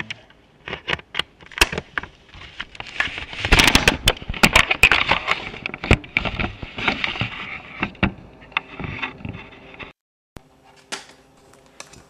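Handling noise from reaching into a freezer: a string of sharp clicks, knocks and rustling, busiest from about three and a half to seven seconds in, cutting out briefly near ten seconds.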